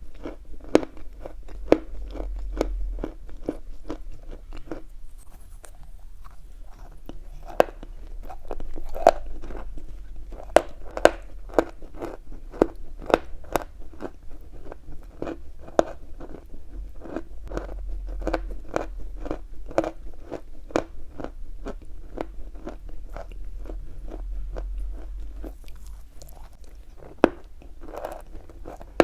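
Chalk being chewed close to the microphone: a run of sharp, dry crunches, about one or two a second, as the pieces are bitten and ground between the teeth.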